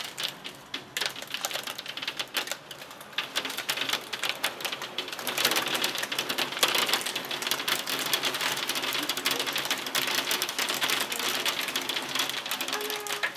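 Hail and heavy rain pelting a window and sill in a severe storm: a dense, rapid clatter of impacts over a steady wash of rain, growing louder about five seconds in.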